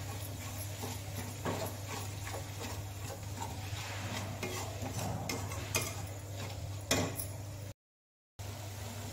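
Metal slotted spoon stirring and scraping a spice-and-yogurt masala paste as it fries in a metal kadai, with sizzling and scattered scrapes and clicks over a steady low hum. The sound cuts out briefly near the end.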